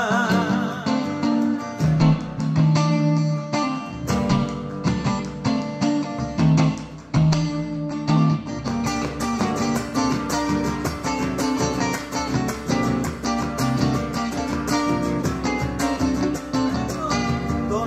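Instrumental passage of a live Argentine folk song, led by strummed acoustic guitar with steady rhythmic strokes and sustained melodic notes.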